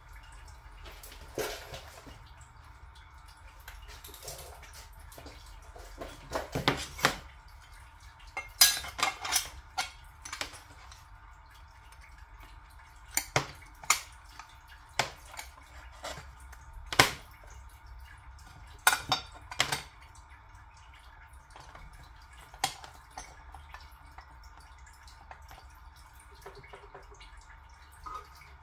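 Light metallic clinks, taps and knocks of bent sheet-metal pieces being handled, fitted together and set down on a workbench while the parts are fitted up for welding. The taps come scattered and irregular, several in quick clusters.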